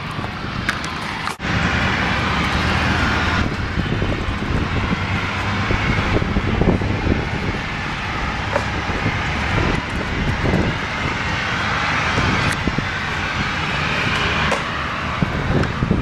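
A steady rushing noise with a low rumble that swells and fades.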